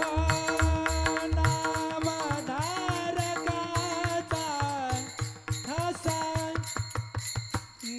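Kirtan devotional music: a sustained, slowly gliding melody line over a fast drum beat with bright small-cymbal clicks.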